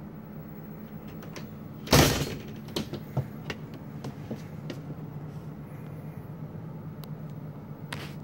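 A door shutting with a bang about two seconds in, followed by a few light clicks and knocks, over a steady low hum.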